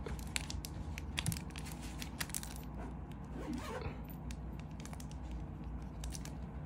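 Faint scattered clicks and light rustling from a chrome Zippo lighter being handled and turned over in the hand.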